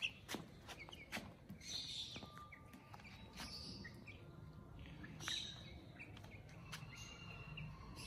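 Faint, scattered chirping of birds, with a few light sharp taps as hens peck lucerne leaves off a concrete floor.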